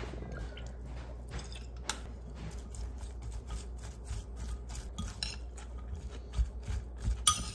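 Metal spoon mixing sliced celery with mayonnaise in a glass bowl, with repeated clicks and clinks of the spoon against the glass.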